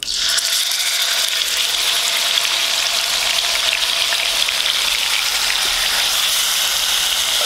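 Yogurt-marinated chicken pieces sizzling as they go into hot oil in a wok: the sizzle starts suddenly and goes on as steady frying while the pieces are stirred with a silicone spatula.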